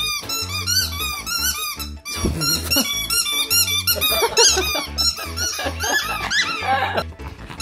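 Bouncy background music with a steady beat. Over it, a Pomeranian chewing a green rubber toy sets off a run of high squeaks.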